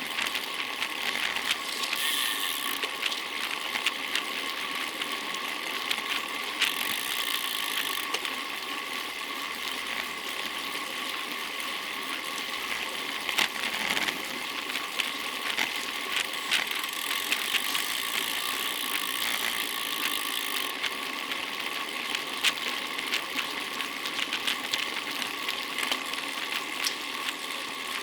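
A bicycle in motion on the road: steady tyre and road noise with a faint steady whine and frequent small clicks and rattles from the bike.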